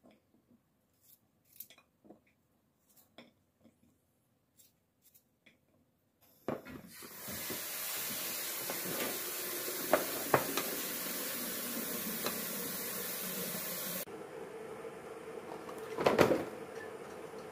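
A knife slicing garlic cloves against a ceramic plate: faint, sparse cuts and taps. Then a steady hiss with a couple of sharp knocks, and about 16 s in, shredded cabbage tipped into a plastic basin lands with a loud rustling thud.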